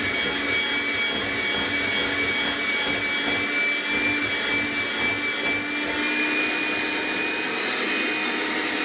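Electric hand mixer running steadily at one speed with a constant motor whine, its beaters churning through chocolate brownie batter as the last egg is beaten in.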